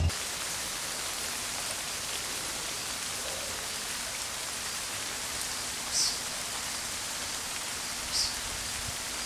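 A steady, even outdoor hiss like rain or rushing water, with two brief high-pitched sounds about six and eight seconds in.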